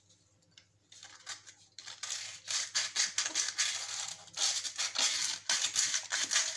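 Sandpaper scraping on the plastic fan parts of a hair dryer in quick, irregular back-and-forth strokes, starting about a second in. The edges are being sanded down so the fan no longer rubs against the housing.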